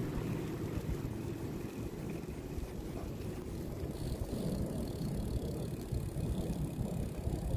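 Hybrid bicycle being ridden: a steady low rumble of tyres and wind on the microphone.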